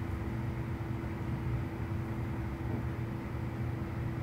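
Steady low hum with a faint steady mid-pitched tone over light hiss: background room noise.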